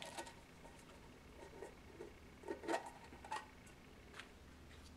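Faint scattered taps and scrapes of hands working a hard pound cake out of a metal ration can over a steel tray, with a few soft clicks, the clearest a little before the three-second mark.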